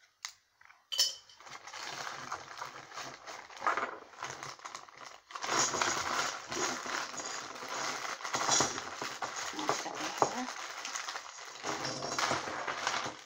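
Small plastic Lego pieces clinking and rattling as they are handled and sorted through, with a sharp click about a second in.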